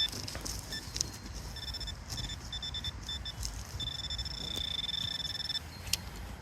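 Metal detector sounding on a buried target: short high-pitched beeps about one and a half seconds in, then a steady tone for about two seconds that cuts off near the end, the signal of metal close by.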